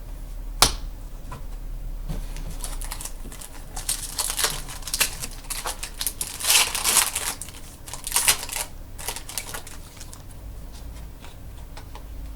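Trading cards and a foil pack wrapper being handled at close range: a sharp click about half a second in, then a long run of irregular crinkling and rustling, loudest in the middle.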